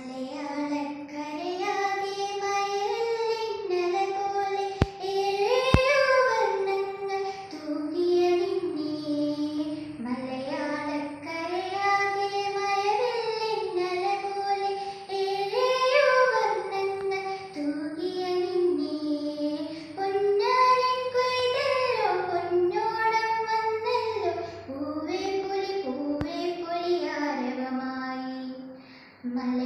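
A teenage girl singing a slow, melodic song solo, in phrases of long held notes with short breaks between them.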